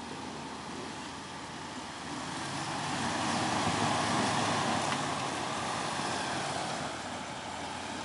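2003 Jeep Wrangler Rubicon's 4.0-litre straight-six running as it crawls up a rough dirt trail, getting louder about two seconds in and easing off again after about five seconds.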